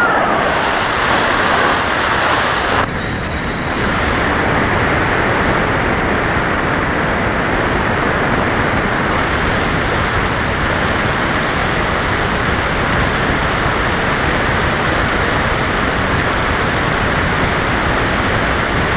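Steady rush of airflow and propeller noise from a Bixler RC plane's electric-motor propeller drive in cruising flight, picked up by the plane's onboard camera microphone. About three seconds in the upper hiss briefly changes and the level dips slightly, then the noise holds even.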